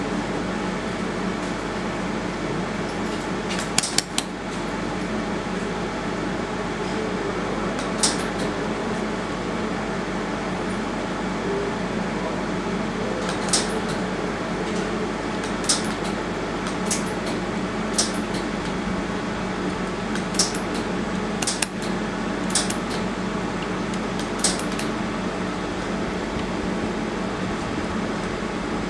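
Steady hum of a fiber laser welding machine's cooling fan, with about ten short, sharp clicks scattered irregularly over it, a few seconds apart.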